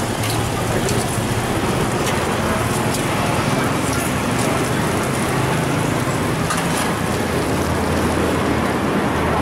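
Busy street ambience: steady traffic noise with a low engine hum running underneath.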